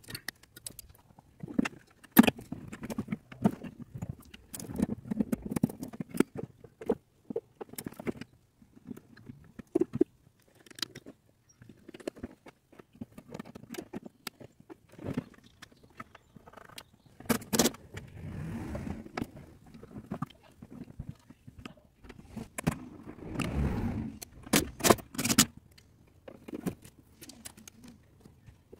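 Metal hand tools and parts clinking, knocking and scraping by hand in a car engine bay, as irregular sharp clicks with a couple of longer scraping stretches.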